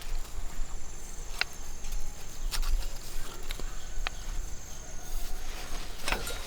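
Outdoor ambience: a steady high insect drone, with a few sharp clicks and a low rumble underneath.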